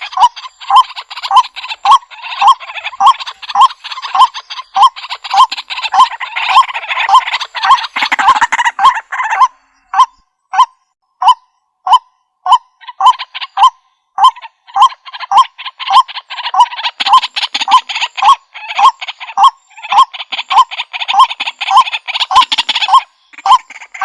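White-breasted waterhens calling: a steady series of loud "kwak" notes about twice a second, under a harsher, chattering chorus that drops out for a few seconds midway, leaving the repeated notes alone.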